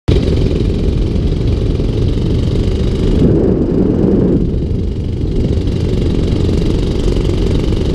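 Wind rushing over and buffeting the action camera's microphone in paraglider flight: a steady, loud, low rumble that swells for about a second a little past three seconds in.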